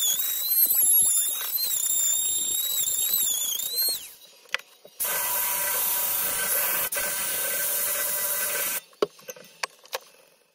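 Handheld rotary tool with a carving burr cutting into a yew log: a high whine that wavers in pitch under load, then winds down about four seconds in. After a brief pause the rotary tool runs again with a sanding drum, giving a steady hiss against the wood for nearly four seconds before stopping suddenly.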